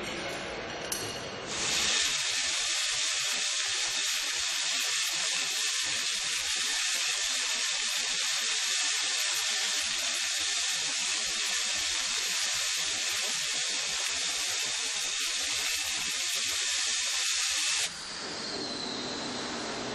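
A steady, loud hiss that starts abruptly about a second and a half in and cuts off sharply near the end.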